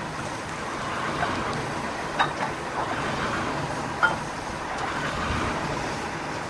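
Fowell steam traction engine in steam, with no chimney or smokebox front fitted, giving a steady mechanical hiss and clatter. Two sharp metallic knocks come about two and four seconds in.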